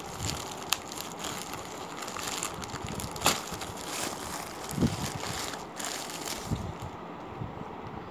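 Plastic packaging crinkling and crackling as it is pulled open by hand, with a few sharper snaps; the crinkling thins out near the end.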